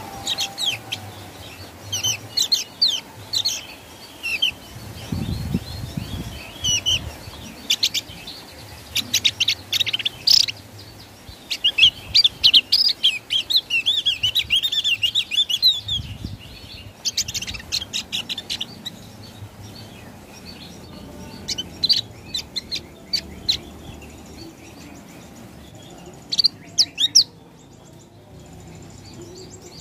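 Javan grey-throated white-eye (opior jawa) singing its loud full song: bursts of high chirps and twitters, with a longer run of rapid warbling near the middle and short scattered phrases after it.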